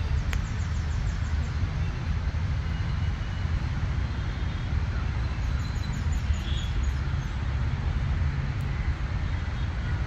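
Steady low rumble of distant city traffic, with faint high bird chirps near the start and again about halfway through.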